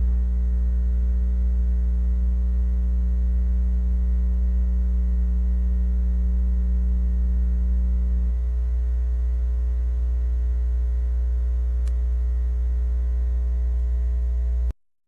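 Steady electrical mains hum with a stack of even overtones, left on the soundtrack where the music is missing. It steps down slightly about eight seconds in and cuts off abruptly to silence near the end.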